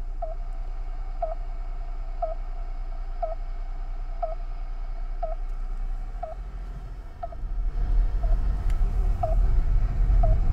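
Radio tracking receiver bleeping about once a second, short even tones, as it picks up the signal of a stolen item's theft-recovery tracker close by. Under it is a low car engine and road rumble that grows louder about seven seconds in.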